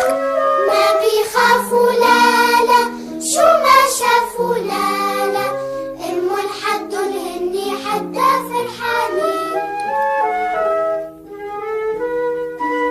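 Children's song music: a child's voice sings a wordless melody over a backing of instrumental notes. About ten seconds in the voice drops out and an instrumental melody carries on alone.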